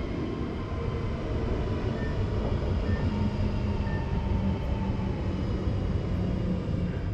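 Passenger train running past: a steady rumble with a low hum and faint higher whine.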